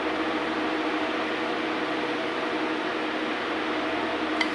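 Steady hum and whoosh of an electric fan running, with one light click near the end.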